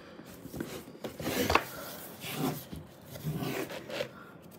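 Hands rubbing and scraping against a cardboard presentation box while working at its lid, irregular and rustling, with a sharper knock about one and a half seconds in.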